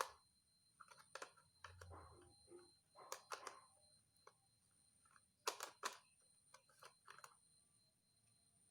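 Faint, scattered clicks and knocks of a camera lens being handled and fitted to a camera body, a few a second at times.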